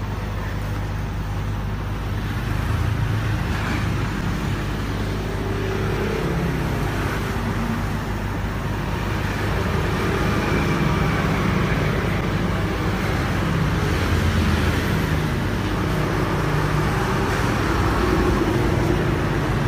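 Road traffic noise: a steady rumble of passing engines whose pitch drifts as vehicles come and go, with no sharp knocks or clicks.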